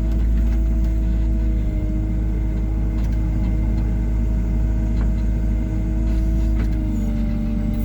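Wheeled excavator's diesel engine and hydraulics running steadily while it works, a constant low hum with a faint steady whine over it and a few faint clicks.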